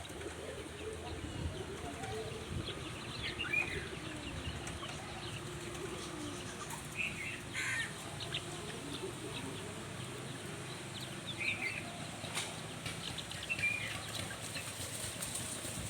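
Birds in a village yard: short high chirps of small birds every few seconds over the low clucking of chickens.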